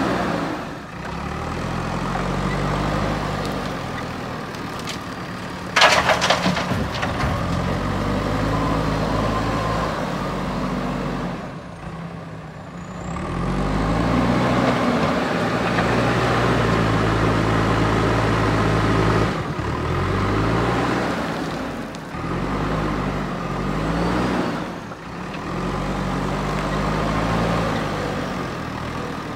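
Diesel engine of a JCB backhoe loader working a loading cycle, its pitch rising and falling again and again as it drives and lifts the bucket. A brief sharp hiss comes about six seconds in.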